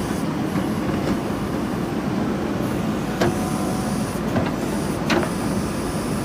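JCB 3DX backhoe loader's diesel engine running steadily, with three short sharp knocks near the middle, as from the digging gear.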